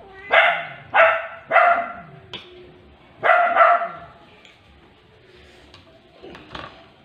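A domestic animal calling loudly: three calls about half a second apart, then a longer call or two about three seconds in.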